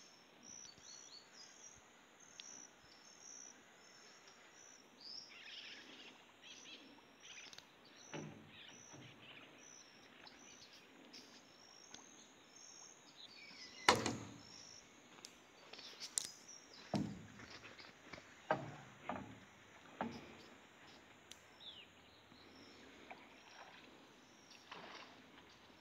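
Scattered knocks and thumps of a small flat-bottomed boat being pushed off the riverbank with a long bamboo pole. The loudest is a sharp knock about halfway through, followed by a run of smaller knocks. Under them, insects keep up a steady, high, pulsing chirp.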